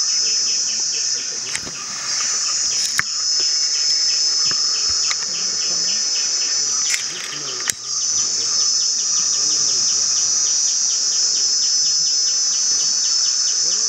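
Insects in a steady high-pitched drone that breaks off briefly twice, with a second insect chirping underneath in a fast, even rhythm; a few sharp clicks.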